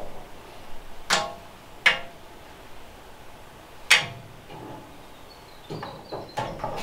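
A tape measure worked against corrugated steel wall sheeting: three sharp metallic clicks with a brief ring, about a second in, two seconds in and four seconds in, then a few smaller clicks near the end.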